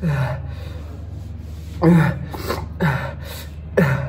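A man's short pained gasping cries from the burn of an extremely hot chili chip, four in a row about a second apart, each falling in pitch. A steady low hum runs underneath.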